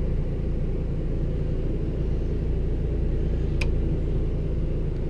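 Steady low drone of an Onan 4000 RV generator running under the load of the roof air conditioner, heard from inside the motorhome. A single short click about three and a half seconds in.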